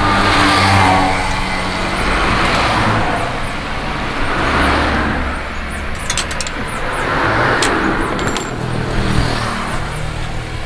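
Road traffic passing, a broad rushing noise that swells and fades every couple of seconds over a low steady hum. A few sharp clicks come about six seconds in.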